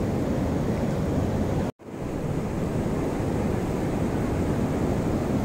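Steady rushing noise of fast-flowing muddy floodwater, heaviest in the low end, which drops out for a split second a little under two seconds in.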